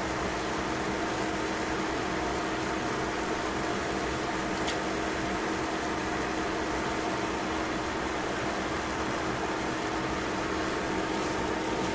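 Miso-marinated chicken cooking in a stainless steel pan on the stove: a steady sizzling hiss over a steady hum, with one faint click about five seconds in.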